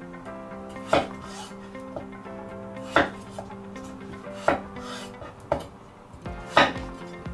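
Kitchen knife chopping peeled potato into chunks on a wooden cutting board: about five sharp knocks of the blade meeting the board, a second or so apart, over soft background music.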